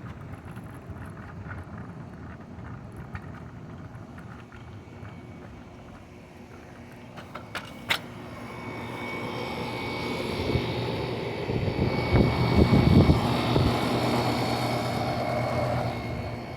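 An engine passing by: its noise swells from about halfway through, is loudest a few seconds later, and fades again near the end. Under it runs the steady hum of outdoor air-conditioning units, with a sharp click about halfway through.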